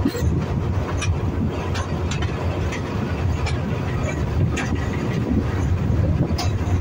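SRT Alsthom diesel-electric locomotive no. 4145 rolling slowly through the rail yard, its engine a steady low rumble, with irregular sharp clicks from the wheels passing over rail joints and points.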